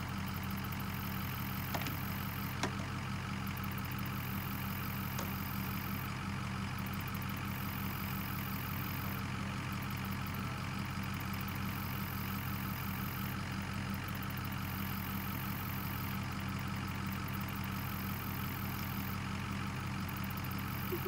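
Pickup truck engine idling steadily, with two short clicks about two seconds in.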